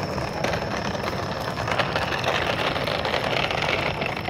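Plastic toy dump truck pulled on a string, its wheels rolling steadily over concrete paving blocks.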